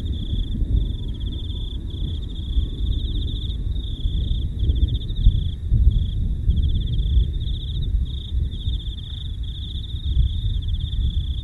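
Crickets chirping in repeated short trills at a steady high pitch, over a continuous low rumbling noise.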